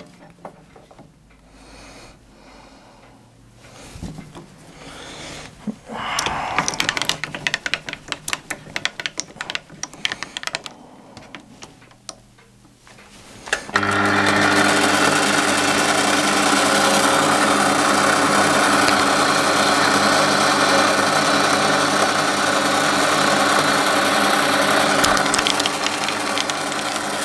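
Clicks and rattles of a lathe tool being set in the toolpost, then about 14 seconds in the metal lathe starts with a sudden jump in level and runs at a steady speed while the tool turns a chamfer on the end of a steel bar.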